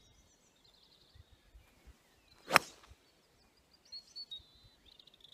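A 7-iron striking a golf ball cleanly off the tee: one sharp crack about two and a half seconds in, with a brief swish of the swing just before it.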